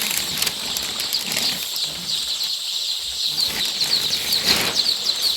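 Many day-old layer chicks peeping together in a dense, continuous chorus of high, short cheeps.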